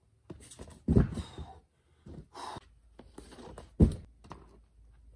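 A boulderer breathing hard, with sharp, noisy exhales and huffs, broken by a few heavy thumps, the loudest about a second in and just before four seconds in.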